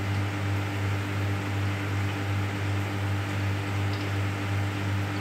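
Aquarium filter pump running: a steady low hum with an even hiss of water pouring into the tank.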